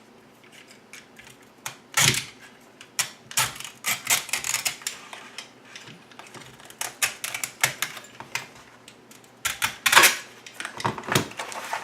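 Irregular crackling and sharp snapping as the glued fabric spider of a Ford Mach 460 speaker is pulled apart. The loudest cracks come about two seconds in and again around ten seconds.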